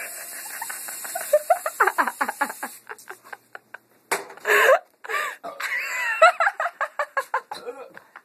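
An aerosol can of Pam cooking spray hissing as it is sprayed into a mouth, steady until it stops about three seconds in. Laughter and other vocal sounds run over it and continue in bursts afterwards.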